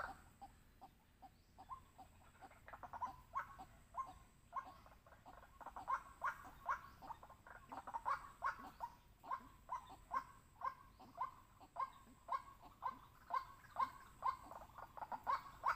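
White-breasted waterhen calling: a long series of short, repeated croaking notes, about two to three a second, starting faint and growing more frequent and louder toward the end.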